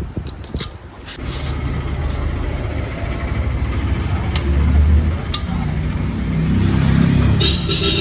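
Small metal parts and tools clinking, then a motor vehicle engine running nearby from about a second in, growing louder twice, with a few sharp metal clicks.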